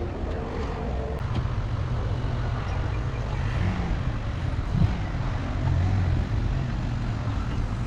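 Motor vehicle engine running with a steady low rumble, and a short knock just past halfway.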